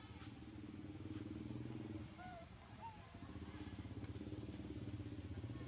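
A small engine running with a rapid pulse, dropping away about two seconds in and coming back a second later, over a steady high insect drone, with a couple of short squeaks in the gap.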